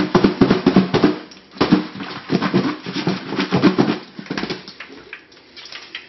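Fries rapidly shaken in a lidded bowl to coat them with seasoning, a fast rhythmic rattling in two bouts with a short break about a second in, dying away after about four seconds.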